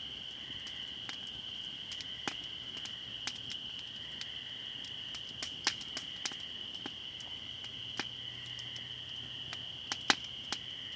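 A chorus of spring peepers, a steady high-pitched peeping, with a wood fire crackling irregularly over it and a few louder pops.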